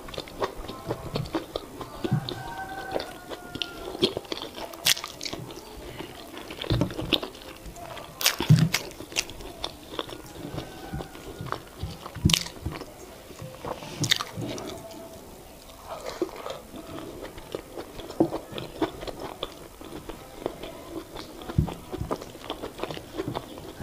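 Close-miked chewing and mouth sounds of someone eating boiled yam with eggplant sauce: irregular wet clicks and smacks, with a few sharper bites.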